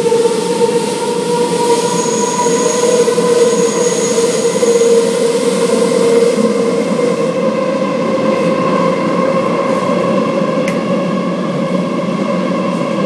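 Métro train running, heard from inside the car: steady wheel-and-track noise with a whine of steady tones over it, and a thin high squeal between about two and five seconds in.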